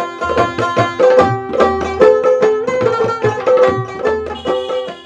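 Background music: a plucked string melody of quick, repeated notes over a steady hand-drum beat.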